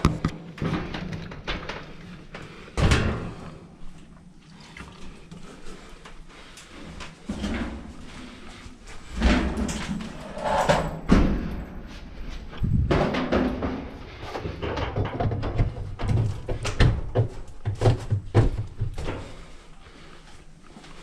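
Frigidaire clothes dryer clanking: irregular knocks and thunks of its metal cabinet and parts over a low steady hum, loudest in clusters near the middle and toward the end.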